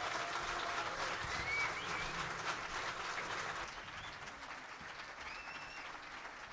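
Concert audience applauding at the end of a jazz piece, fairly light, thinning out over the last couple of seconds.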